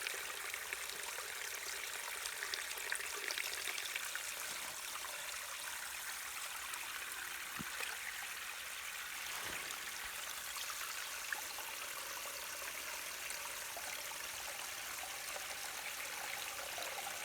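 Small waterfall spilling over a hand-built dam of river stones: a steady trickling, splashing rush of water.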